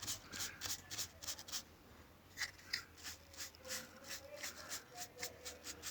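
Quick rubbing strokes by hand over a wood surface, a few a second, in two runs with a short pause about two seconds in.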